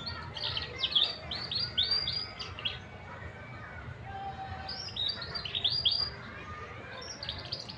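Young domestic canary, about four months old, singing: three phrases of quick repeated high chirps, the first and longest at the start, another about five seconds in, and a short one near the end.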